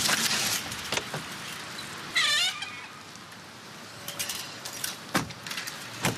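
A car door is shut with a sharp thud about five seconds in. Before that comes a short, high squeaky chirp lasting under half a second.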